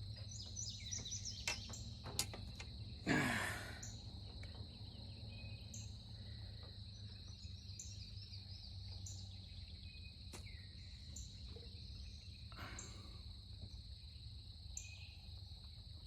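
Outdoor insect chorus: a steady high insect trill with a faster pulsing above it, with a few scattered bird chirps. Two brief breathy whooshes stand out, a few seconds in and again near the end.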